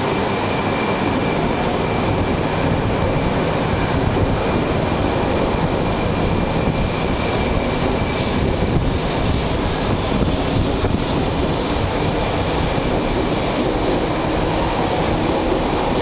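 200 Series Shinkansen train departing from a station platform, its cars rolling past with a steady, dense rumble. A thin high whine fades out about halfway through.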